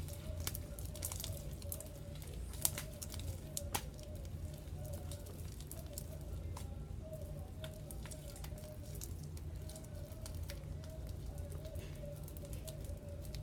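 Sticky glitter slime being kneaded and pulled by hand: irregular wet crackles and small pops as the still-tacky slime sticks to and pulls off the fingers, over a steady low background hum.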